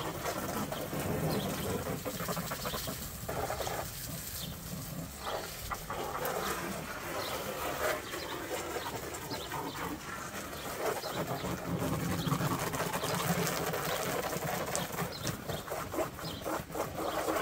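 Garden hose spray nozzle jetting water into an inflatable hot tub: a steady hiss of spray splashing on the tub's vinyl walls and floor.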